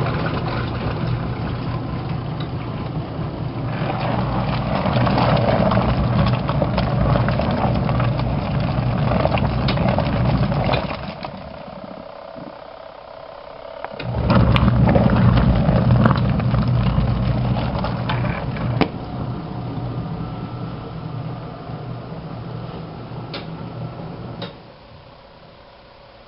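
Ultra-compact twin-tub washing machine's motor running with a steady hum and the churning of water in the tub. It stops about eleven seconds in, starts again a few seconds later, and dies down near the end.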